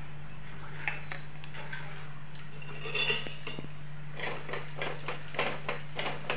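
Dry white dal grains poured into an aluminium pan of tempering cumin and mustard seeds, rattling briefly about three seconds in, followed by a run of small clinks and knocks of utensils against the pan. A steady low hum runs underneath.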